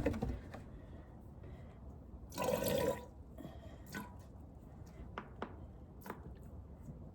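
Goat being milked by hand into a pot: a few short squirts of milk hitting the pot, with a longer splashy patch about two and a half seconds in.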